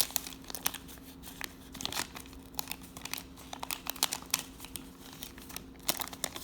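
Wax paper wrapper of a 1983 Topps baseball card pack being torn open and crinkled by hand: a run of quick, irregular crackles.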